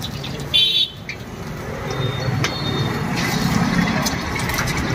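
A vehicle horn toots once, briefly, about half a second in, over steady street traffic noise. After that an egg cracked into the hot oiled iron wok starts sizzling, and the ladle clinks against the wok now and then.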